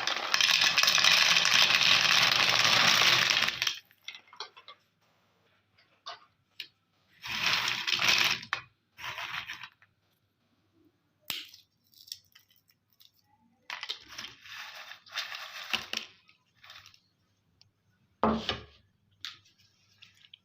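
A meat grinder's motor runs loudly and steady, then cuts off after about four seconds. Scattered rattles, clicks and short cracks of peanuts being handled and dropped follow.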